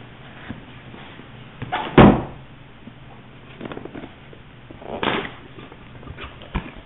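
Hard-drive retail box and its packaging being handled and opened: a loud thump about two seconds in, a shorter scraping rustle about five seconds in, and a few light clicks.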